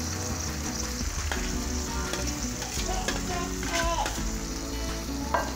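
Chillies, tomatoes and shallots sizzling in oil in a metal wok, stirred and scraped with a slotted metal spatula as shredded salted fish is mixed in.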